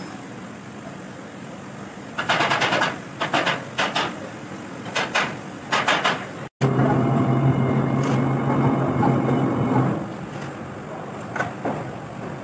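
Metal engine parts, pistons and connecting rods, clinking and knocking as they are handled and set down. After a cut, a steady machine hum holds for a few seconds, then a few more metal clicks near the end.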